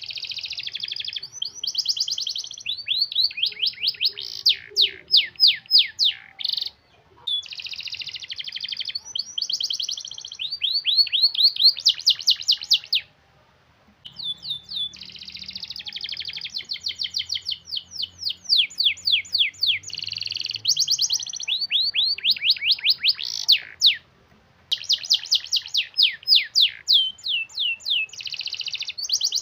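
Domestic canary singing long, tight rolls: fast trills and runs of rapidly repeated high notes, nearly without a break, pausing briefly about 7, 13 and 24 seconds in.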